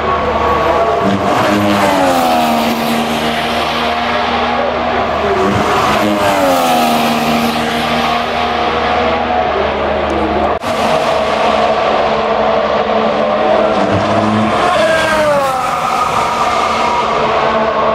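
Formula One cars' 1.6-litre turbocharged V6 hybrid engines running hard on track, several at once. The engine notes fall sharply in pitch around two seconds in, again near six seconds and near fifteen seconds.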